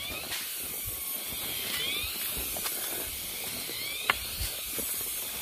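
Forest ambience: a steady high hiss with a few short rising chirps, and a single sharp click about four seconds in.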